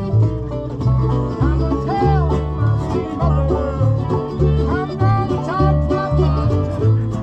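Acoustic bluegrass band playing a tune live: banjo and guitar picking over a bass line that alternates steadily between two low notes, with sliding melody notes above.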